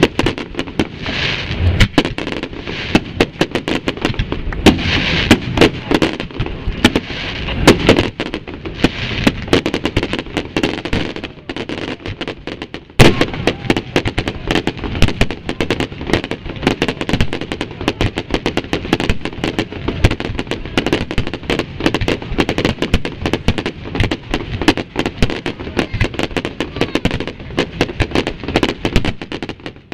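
Fireworks display: a dense, rapid barrage of shell bursts going off one after another. There is a short lull a little before halfway, then one especially loud bang before the barrage resumes.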